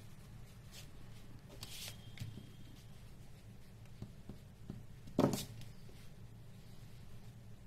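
Faint scratching of a pencil sketching on drawing paper over a low, steady room hum, with one short knock about five seconds in.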